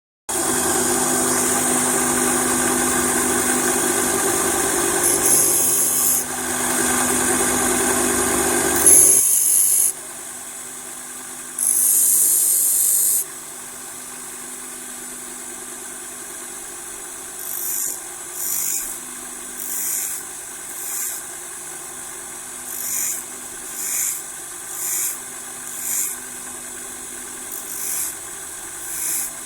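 Electric grinder running with a steady hum while a blunt drill bit is sharpened on it: a long stretch of grinding through the first nine seconds, another about twelve seconds in, then short grinding touches about once a second through the second half.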